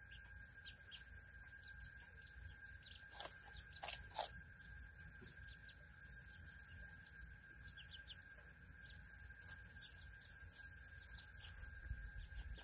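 Quiet outdoor ambience in a chicken run: a steady high insect buzz, with a few short bird chirps about three to four seconds in.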